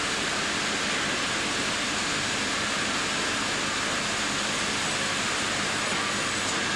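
Industrial bandsaw line running: a steady, even machinery noise with no clear rhythm.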